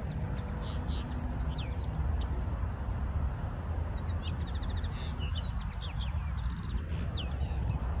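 Yellowhammer singing: quick runs of repeated high notes, loudest about four seconds in, among other short chirps, over a steady low rumble.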